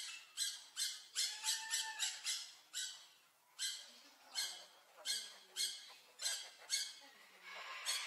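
Blue-naped parrot giving a run of short, harsh squawks, about two or three a second, with a brief pause around three seconds in.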